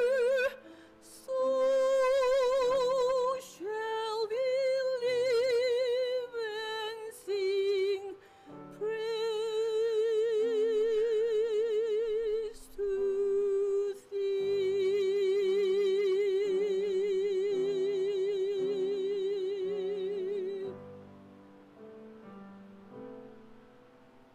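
A woman singing solo with wide vibrato over a soft instrumental accompaniment. She ends on a long held note about 20 seconds in, then the accompaniment carries on quietly alone.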